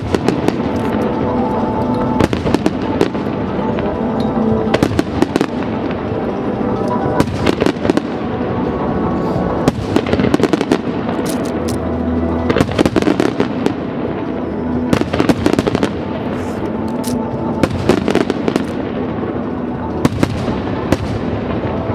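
A fireworks display with shells bursting in quick succession, some in rapid crackling clusters, over music played throughout.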